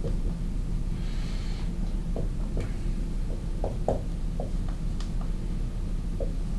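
Steady low electrical hum with a few faint scattered clicks, a short scratching hiss about a second in and a sharper click near five seconds in.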